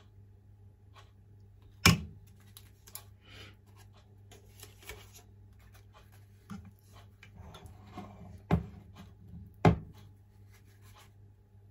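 Kitchen handling sounds as batter is ladled into banana-leaf cups: three sharp knocks of the ladle and cups against the metal bowl and steamer tray, one about two seconds in and two close together later, among lighter clicks and rustles, over a low steady hum.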